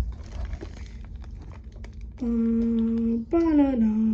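A voice sings long held notes starting about two seconds in, the second note sliding down in pitch. Before that, faint crinkling of the plastic Ziploc piping bag as white chocolate is squeezed out.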